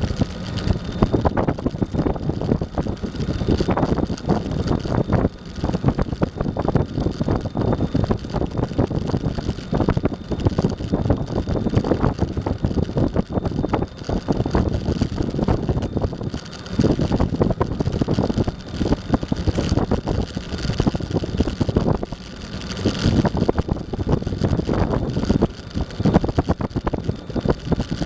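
Eglide 42 electric skateboard rolling at speed over asphalt: a continuous low rumble and rapid rattle from the wheels and deck, with a few brief lulls.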